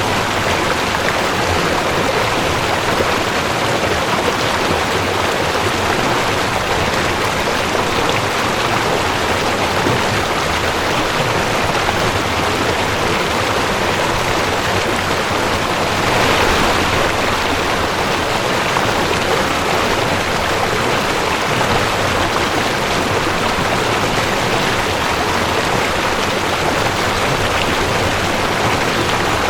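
Mountain stream rushing over rocks: a steady, dense rush of water, swelling slightly about halfway through.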